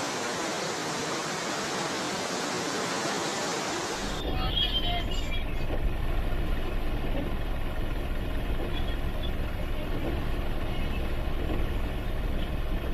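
Rushing floodwater, a loud even hiss, which cuts off about four seconds in to a steady low rumble from a vehicle driving along a flooded street.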